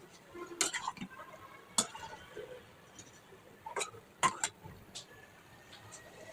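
A spoon or spatula clinking and knocking against a cooking pot while a dish is stirred, with a few sharp, irregular clinks, the loudest two coming about two and four seconds in.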